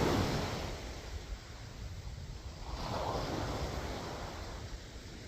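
Sea waves washing up on the shore with wind on the microphone; the surf swells again about three seconds in.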